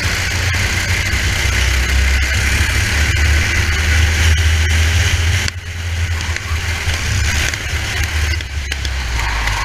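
Racing kart engine running under load, heard from a helmet-mounted camera with rushing wind noise over it. The engine note drops suddenly about five and a half seconds in, as if off the throttle, then picks back up.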